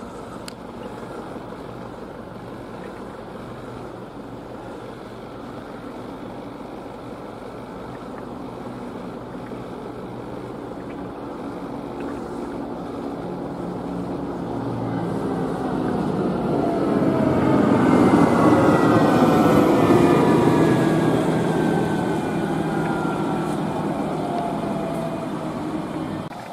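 Road vehicles on a country road: a low steady engine hum, then a vehicle passing close by about 18 to 20 seconds in, its engine and tyre noise building to a peak and dropping in pitch as it goes past.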